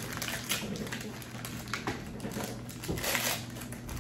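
Rustling and crinkling of toy packaging being handled, with small clicks and taps, and a louder rustle about three seconds in.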